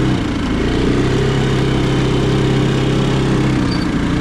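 ATV engine running steadily as the quad rides along a muddy trail; the revs dip at the start and pick back up about half a second in, then hold even.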